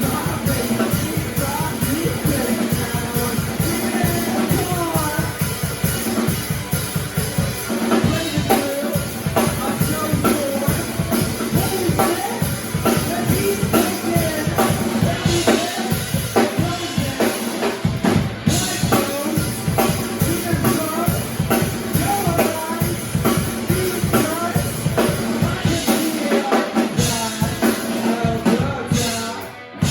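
Live rock band playing a song, the drum kit prominent with a steady, driving beat of kick and snare.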